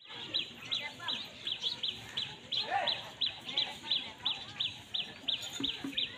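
Birdsong at sunrise: one bird repeats a short, high chirp about three times a second, with other lower bird calls mixed in beneath it.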